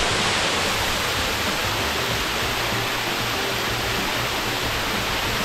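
Small waterfall falling as many thin streams down a steep rock face and splashing into a shallow pool at its foot, heard close up as a steady rushing hiss.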